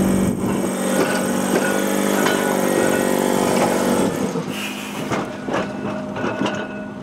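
Blackpool heritage tram moving slowly through the depot: a steady mechanical hum that drops lower and quieter about four seconds in, with many short clicks and knocks of wheels over rail joints.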